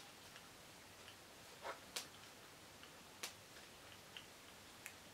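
Four or five faint, sharp plastic clicks at irregular intervals as an Apeman action camera is handled and taken off its selfie-stick mount, over near-silent room tone.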